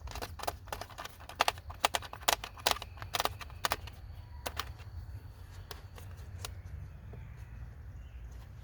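Quick irregular clicks and taps of small plastic and metal parts being handled: the charger socket being seated in its hole and its retaining nut threaded on behind. The clicks come thick and fast for the first few seconds, then grow sparse.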